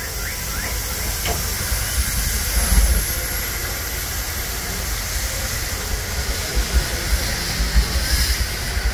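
Steam hissing steadily from the cylinder cocks of the C.K. Holliday, a 4-4-0 steam locomotive, as it starts away. A stronger burst of steam comes near the end.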